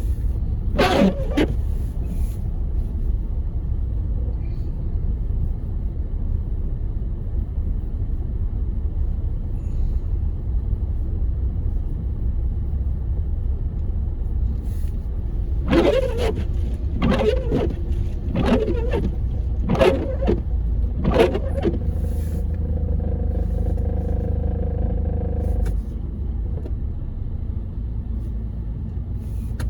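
Car driving on a snowy road, heard inside the cabin as a steady low road-and-engine rumble. Rising and falling squeals come about a second in and then five times, about every second and a half, near the middle: windshield wipers squeaking across the glass, wiper blades the driver says need replacing. A steady hum follows for a few seconds.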